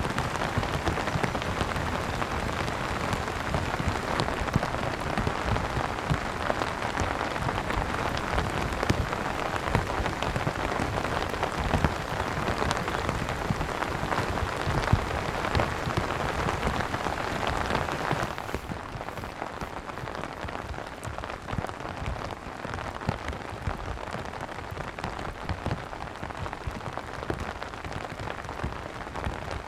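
Steady rain falling, with many separate drops hitting a surface. About eighteen seconds in it abruptly turns softer and duller.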